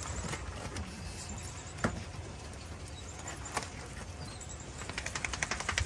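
A taped cardboard parcel being cut and torn open with a knife: a few scattered sharp clicks, then a quick crackling run of clicks for about a second near the end as the tape and cardboard give way.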